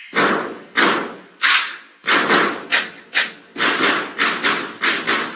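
Heavy drum hits from a song's backing track: a string of loud, booming beats at uneven spacing, roughly two a second, each dying away quickly.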